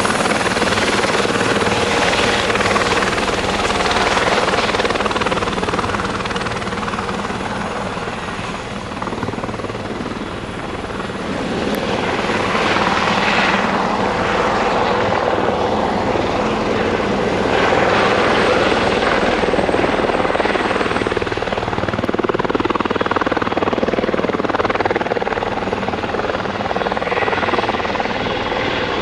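Light turbine helicopter with a Fenestron tail rotor hovering low: steady rotor and turbine noise with a constant whine. It dips somewhat about ten seconds in, then swells again.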